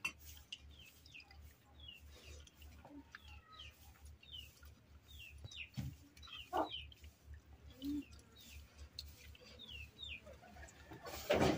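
Small birds chirping over and over in short falling chirps, with an occasional chicken cluck. A louder burst of noise starts near the end.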